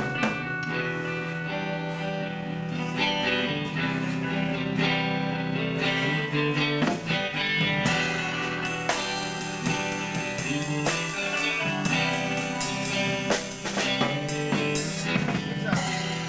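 A rock band playing live: electric guitar notes ringing out over a drum kit.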